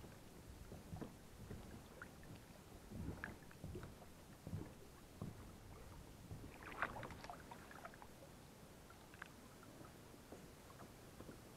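Faint water lapping and soft knocks against a plastic kayak hull, with a few small splashes, the clearest about seven seconds in.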